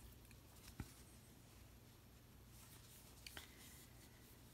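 Near silence: faint rubbing of a crochet hook working cotton yarn, with two soft ticks, one about a second in and one past the middle, over a low room hum.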